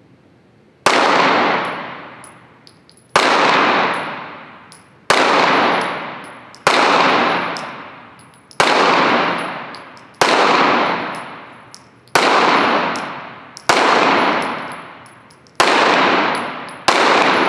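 9mm Smith & Wesson M&P 2.0 pistol fired slowly for accuracy: about ten single shots, each a sharp crack followed by a long echo that dies away over a second or more in an indoor range, spaced roughly one and a half to two seconds apart.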